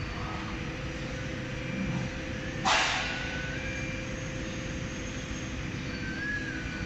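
Multi-spindle woodworking CNC router with its gantry moving, giving a steady machine hum with a steady whine. A short loud hiss comes about two and a half seconds in.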